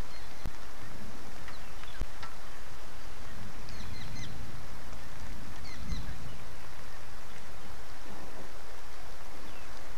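Steady heavy rain falling, with a few short faint high chirps around the middle.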